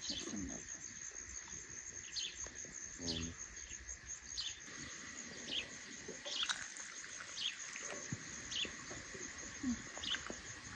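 A bird chirping repeatedly, one short call about once a second, over a steady high-pitched hum.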